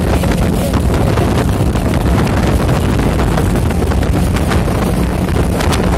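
Speedboat engine running steadily under way, a constant hum, with wind buffeting the microphone.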